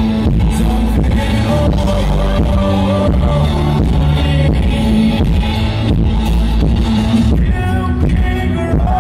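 Live band music with a singer's voice over it, loud and steady with a heavy bass, heard from the audience.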